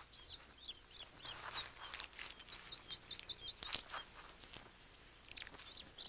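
Faint small birds chirping in the background: short, quick high chirps in scattered runs, the busiest run about halfway through, with a few soft ticks.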